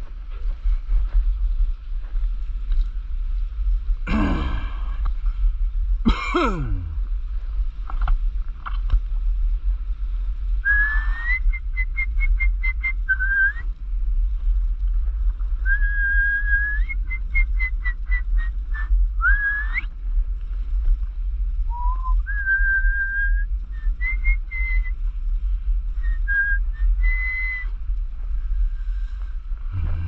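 A person whistling a tune, short held notes stepping up and down with quick trills, over a steady low wind rumble on the microphone from riding along. Two quick downward swooshes come about four and six seconds in.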